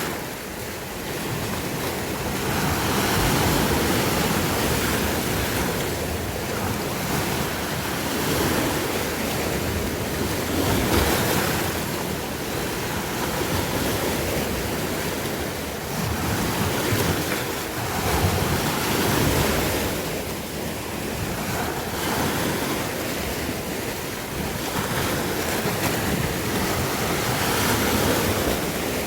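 Sea waves washing onto the shore in a continuous surf, swelling and easing every few seconds.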